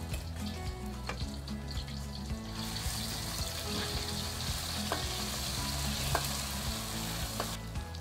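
Sambal belacan paste sizzling in hot oil in a wok while it is stirred with a spatula. The sizzle grows much louder about two and a half seconds in, and there are a few knocks of the spatula against the wok.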